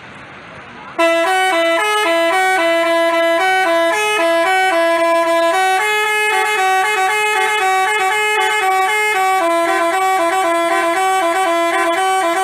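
Telolet basuri multi-tone bus horn playing a melody, two tones moving together in short and held notes. It starts loudly about a second in and stops right at the end.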